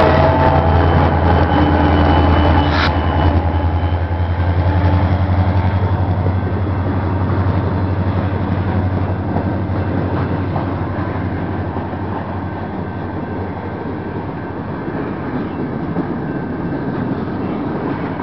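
EMD SD40 diesel locomotives' 16-cylinder two-stroke engines passing close by with a strong low rumble that fades away after nine or ten seconds. Behind them, a long string of empty flatcars rolls by with a steady rolling noise of wheels on rail.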